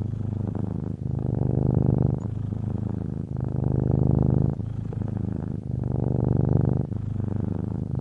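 Domestic cat purring: a continuous low, fast-pulsing purr that alternates between a louder and a softer phase about once a second, with each breath in and out.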